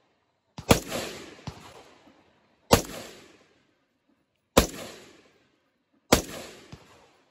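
Anderson Manufacturing AM-15 semi-automatic rifle firing four single shots about two seconds apart, each a sharp crack with a trailing echo.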